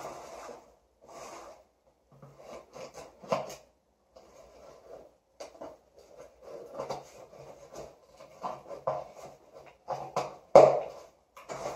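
Scissors slitting the tape on a cardboard box: short, uneven scraping and rubbing strokes of the blade against tape and cardboard, with a sharp, loud scrape about ten and a half seconds in.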